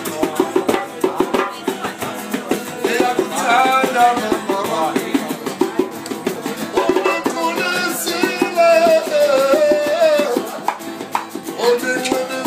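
Live jam-session music: a singing voice over a steady percussion rhythm and accompanying instruments.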